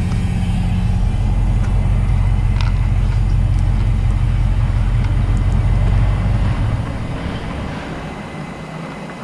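A vehicle engine idling: a steady low rumble that fades away about seven seconds in.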